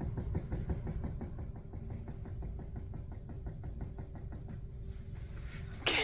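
A child's rapid, even pulsing, about ten beats a second over a low hum, like a small motor running.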